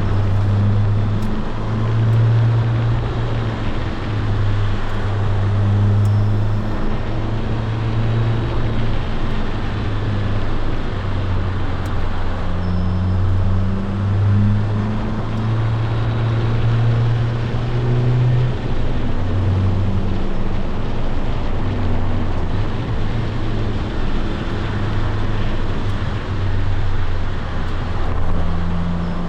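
Honda S2000 four-cylinder engine running while the car is driven, with a steady drone whose pitch shifts a little as speed changes, over road and tyre noise.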